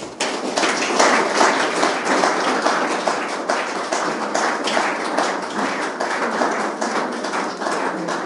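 Audience applauding: many hands clapping at once, starting suddenly and holding steady.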